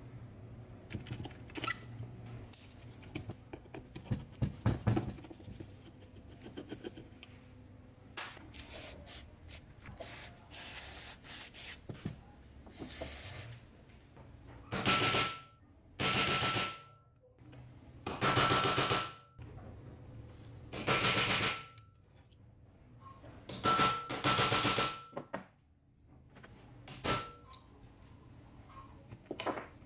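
Clicks and scrapes of metal chainsaw parts being handled. Then a workshop tool runs in about six short bursts of loud hissing with a faint whistle, each half a second to a second long.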